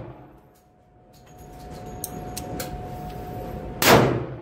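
A single gunshot from a Heritage Barkeep single-action revolver, a sharp crack near the end with a short ringing tail in the enclosed range booth. A few faint clicks come before it.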